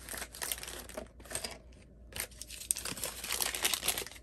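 Packaging crinkling and rustling as hands unwrap and handle small doll accessories, in short irregular crackles with a brief pause about a second in.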